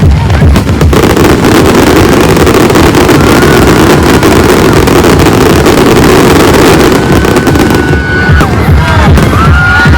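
A fireworks display going off in a dense, continuous barrage, its bangs and crackling merged into one loud, distorted rumble, with music playing along. Thin whistling tones come in near the end.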